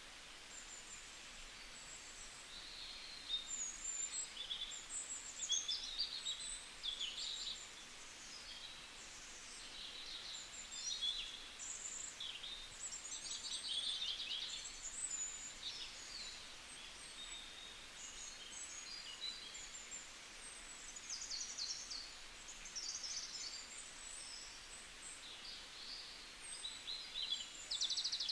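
Small birds chirping and singing, many short high calls overlapping and coming and going throughout, over a faint steady hiss.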